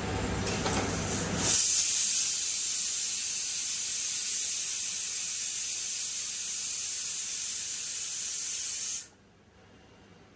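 Loud, steady high-pitched hiss that starts suddenly about a second and a half in and cuts off abruptly about nine seconds in.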